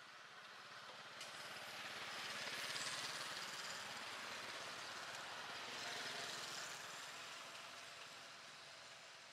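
A motor vehicle passing by: engine and tyre noise that builds, peaks about three seconds in and again around six seconds, then fades away.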